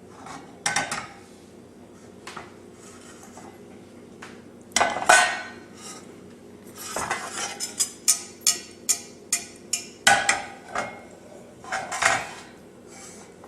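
Utensil knocking and clinking against a metal saucepan in which butter is melting: scattered knocks, the loudest about five seconds in, and a quick run of clinks about four a second in the middle, over a faint steady hum.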